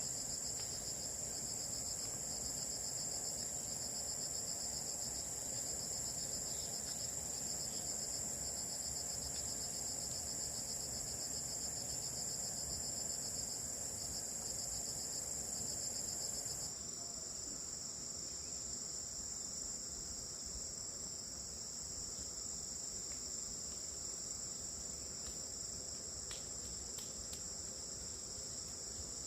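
Steady high-pitched chorus of insects, crickets or cicadas, with a fast pulsing trill. About two-thirds of the way through it changes suddenly and the highest part of the chorus drops out.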